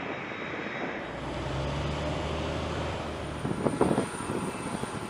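Jet aircraft engines running: a steady rush with a thin, high whine over it. The sound changes about a second in, with a low hum for a couple of seconds and a few short knocks near the end.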